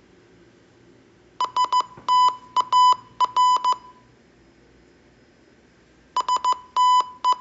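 Morse code tone beeping out the word STAR (··· − ·− ·−·) in short and long beeps. It is played twice: once about a second and a half in, and again from about six seconds in.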